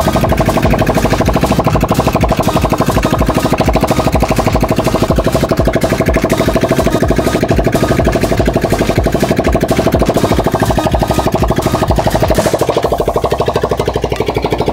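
Kawasaki Rouser 180's air-cooled single-cylinder four-stroke engine running steadily after its overhaul, a fast, even beat of firing pulses.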